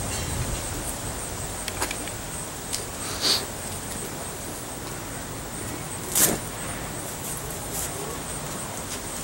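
Steady outdoor background noise with a few scattered clicks and knocks, the sharpest about six seconds in.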